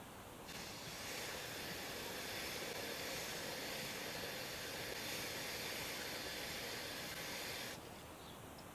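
Aerosol dry chain lube being sprayed onto a motorcycle chain in one long steady hiss of about seven seconds, starting about half a second in and cutting off near the end.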